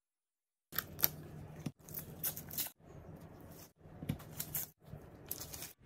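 Quiet handling noises as butter pieces are pressed in among chicken drumsticks in a disposable aluminium foil pan: sharp clicks and rustles of foil and gloves, in a few short clusters broken by brief cut-outs.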